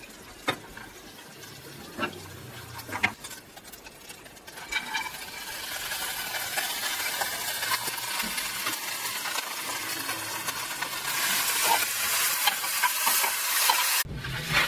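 A few sharp clicks of nuts and utensil against a pan, then butter sizzling steadily as barberries fry in it, the sizzle building over a second or two and cutting off suddenly near the end.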